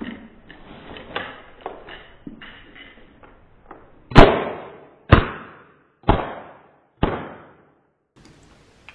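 Cap-firing Tanaka Works model gun of the JGSDF 9mm pistol (P220): handling rustle and clicks as it is drawn from a nylon holster, then four sharp cap shots about a second apart, the first the loudest, and another right at the end.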